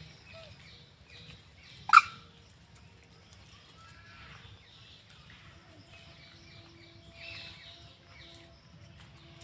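A single short, loud animal call about two seconds in, sweeping sharply up in pitch, with faint chirps scattered around it.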